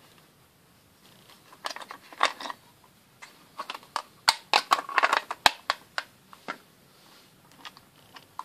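Hard plastic and steel clicking and clacking as a screwdriver handle, extension and small bits are handled in and pulled from the slots of a plastic bit case, with a busy run of sharp knocks in the middle.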